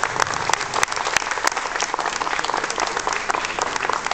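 Audience applauding, a steady patter of many hands clapping.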